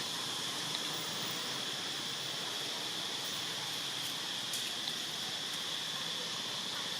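Steady outdoor ambience: an even hiss with a high, unbroken drone like insects, and a few faint clicks about halfway through.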